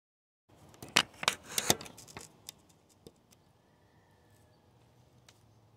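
Handling noise from a phone being set down by hand: a quick run of rubbing and clicking knocks in the first two seconds or so, then a few faint ticks.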